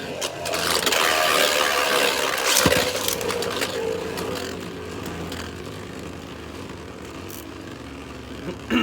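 Two Beyblade Burst tops spinning and clashing in a plastic stadium: a whirring, scraping spin whose pitch slowly falls as the tops lose speed. There is a sharp knock of contact a little under three seconds in and another hit near the end.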